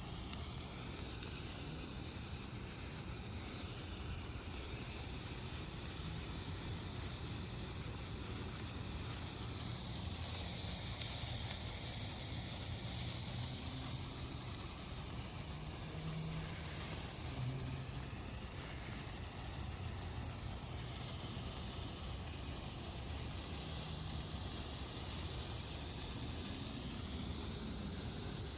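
Hanabi sparkler burning with a steady hiss, its high end sweeping slowly up and down.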